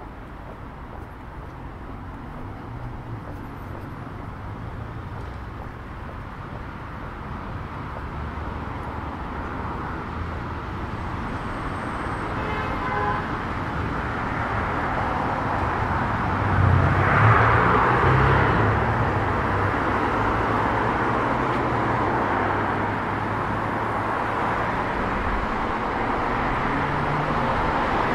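City street traffic: cars driving past, the noise growing louder, with one vehicle passing close about seventeen seconds in.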